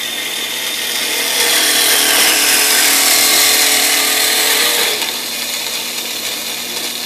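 Ellis 1600 metal-cutting bandsaw running, its blade cutting steadily through square metal tubing at a miter angle. The cutting is loudest through the middle and a little softer from about five seconds in.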